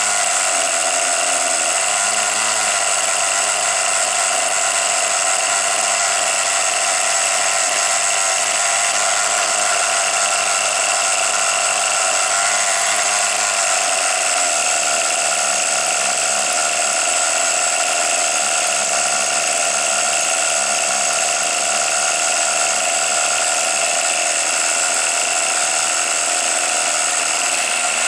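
The two-stroke glow (nitro) engine of a Tamiya TGX 1/8 RC car running steadily with its wheels spinning off the ground, a continuous high buzz. Its lower notes shift about halfway through.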